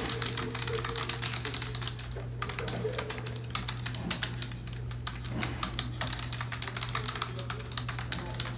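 Rapid computer keyboard typing, a dense run of keystroke clicks, over a steady low hum, with faint voices from a television underneath.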